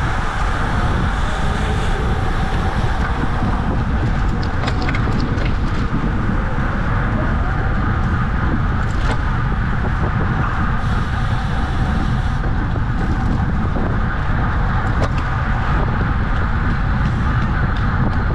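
Steady wind rushing over the microphone of a camera on a bicycle moving at racing speed, with a few faint clicks about four to six seconds in.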